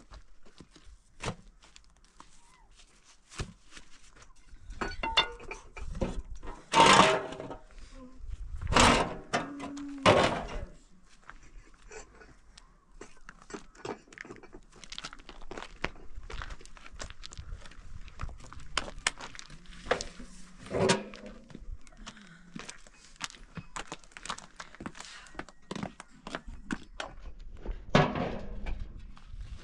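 Irregular knocks, clinks and thuds of things being handled and set down, with a few louder, noisier bursts about seven to ten seconds in and again near the end.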